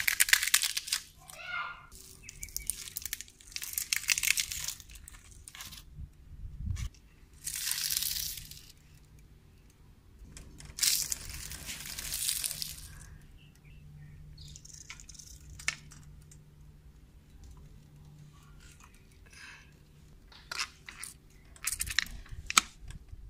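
Bicycle tyre rolling over and crushing dry leaves and other brittle things: a series of crunching, crackling bursts, each lasting a second or two, with a few sharp cracks near the end.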